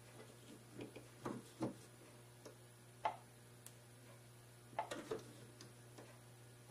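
Small scattered clicks and taps of goosebeak setting pliers working the prongs of a white gold ring, tightening its loose stone. The sharpest click comes about three seconds in, with a small cluster about five seconds in.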